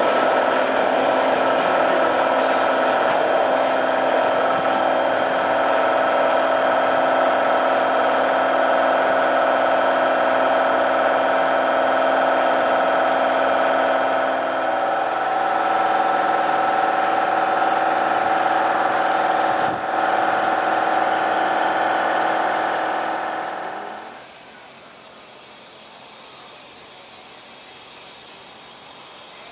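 Belgian electric multiple unit's electrical equipment giving a loud, steady whine of several fixed tones, which shift upward once about halfway through. The sound drops away sharply near the end, leaving a much quieter background.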